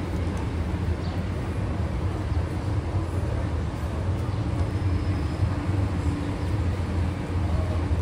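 A steady low drone, like an engine or motor running, with an even background hiss.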